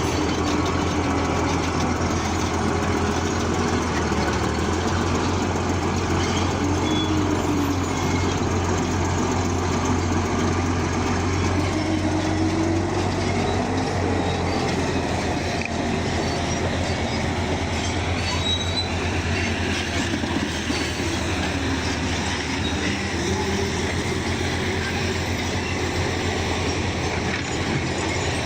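Bulldozer at work: a diesel engine running with a steady low drone, and a whining tone that slowly rises and falls as the machine works.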